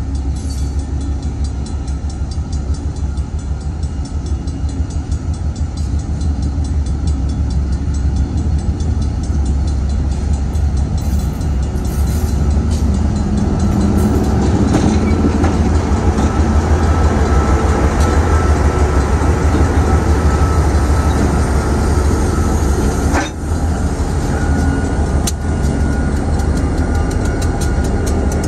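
Six-axle diesel locomotives passing slowly at close range: a deep, steady engine drone that grows louder as the lead unit comes by, with a thin steady tone above it from about halfway and a few sharp clicks of wheels on the rails near the end.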